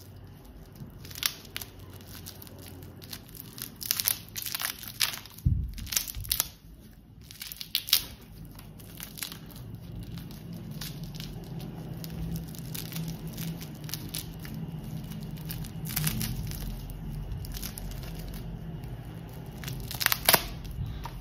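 Clear protective plastic film being peeled off a steel watch bracelet and case: intermittent crinkling and tearing crackles, with a short cluster of louder crackles near the end.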